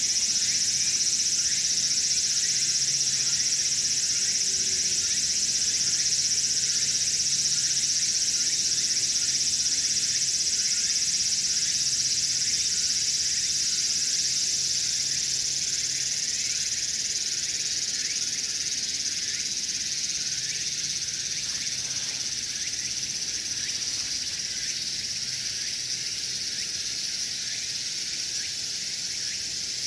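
A dense chorus of insects: a steady, high-pitched drone of many callers at once, easing slightly in the second half.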